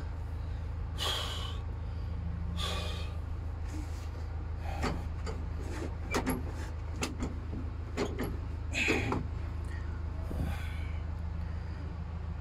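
A steady low hum with scattered scrapes, rubs and sharp clicks.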